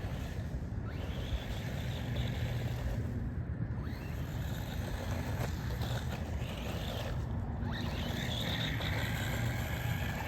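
Electric RC buggy running, its motor and drivetrain whining as it speeds up and slows down, over steady rumbling outdoor background noise.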